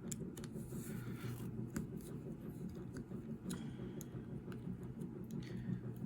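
Light, scattered clicks and scrapes of a screwdriver tip being fitted against a small screw on a snowblower carburetor, over a steady low hum.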